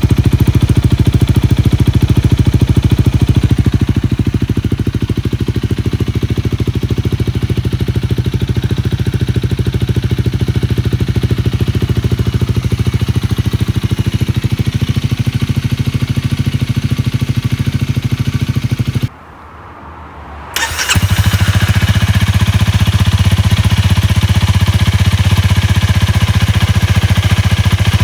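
Honda Rebel 250's single-cylinder engine idling steadily with a fast, even pulse through an aftermarket OverRacing SS megaphone muffler. About two-thirds of the way through, the sound drops out for about a second and a half. After a click, the engine idles again, louder.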